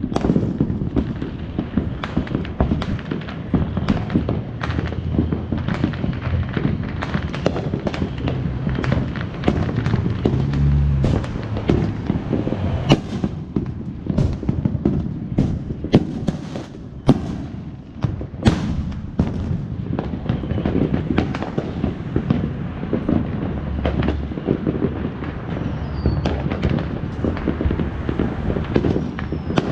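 Neighbourhood fireworks and firecrackers going off nonstop: a dense, irregular barrage of sharp pops and cracks, with some heavier bangs among them.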